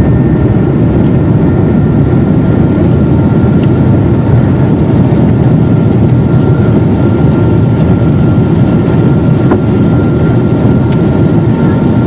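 Boeing airliner's jet engines at take-off thrust, heard inside the cabin beside the wing: a loud, steady rumble with a thin steady whine above it, through the take-off roll to lift-off.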